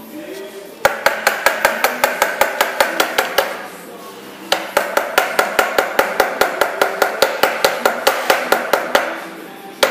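Rapid metallic tapping, about six strikes a second, in two runs of a few seconds each, each strike ringing briefly.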